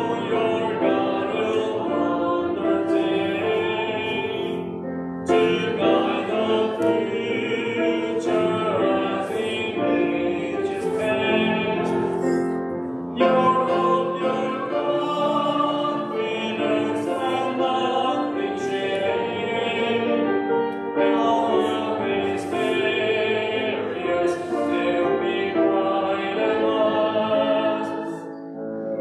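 Congregation singing a hymn with keyboard accompaniment, in held, steady notes with short breaks between lines.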